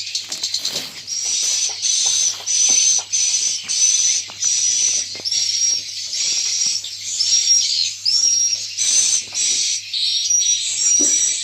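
Swiftlet calls: a rapid, regular series of high chirps, two or three a second, over a faint steady low hum.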